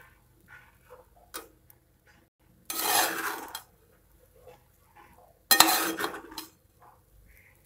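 A steel spoon stirring cooked rice in a metal pot, scraping against the pot. Faint scraping runs throughout, with two loud scrapes of about a second each, around three and six seconds in.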